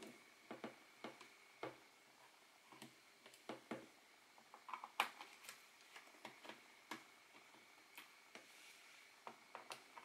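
Scattered light clicks and taps of hands handling and pressing the plastic bottom cover of a Lenovo ThinkPad A485 laptop, about fifteen in all, the loudest about five seconds in.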